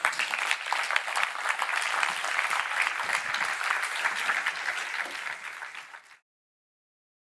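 Audience applauding, a dense steady clapping that is cut off abruptly about six seconds in.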